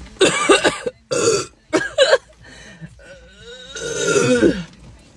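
A person burping loudly about four times, gas brought up after gulping cola: three quick burps in the first two seconds, then a pause and a longer burp about four seconds in.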